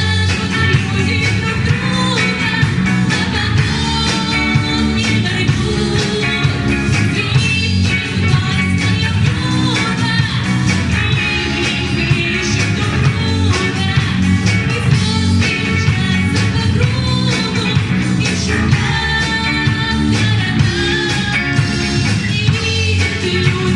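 A pop song with a steady, upbeat rock-and-roll rhythm, guitar and singing.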